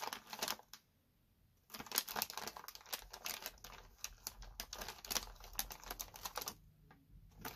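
Plastic cereal bag crinkling and small crunchy chocolate cereal pieces clicking as they are handled and sorted through, in quick irregular clicks. There is a pause of about a second near the start.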